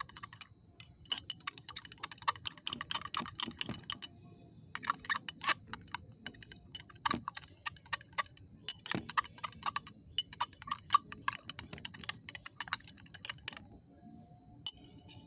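A metal knife blade stirring a watery mix in a drinking glass, clinking rapidly against the glass with a light ringing, in three spells separated by short pauses.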